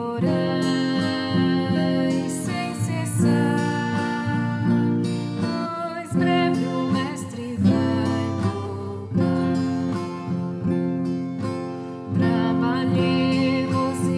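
Music: a Christian hymn accompanied by acoustic guitar.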